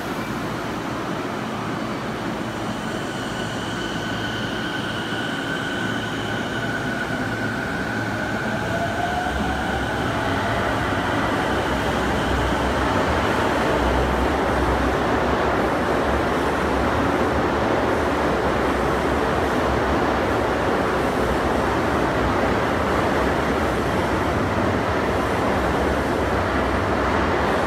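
Toei subway train pulling out of an underground station. A steady high tone sounds for a few seconds, then the traction motors' whine rises in pitch as the train accelerates, and the rumble of the passing cars grows louder.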